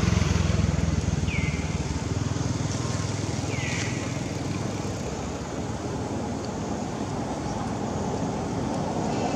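Motor vehicle engine hum, loudest at the start and fading over the first two seconds, leaving a steady outdoor background noise. Two short high chirps falling in pitch come about a second and a half and nearly four seconds in.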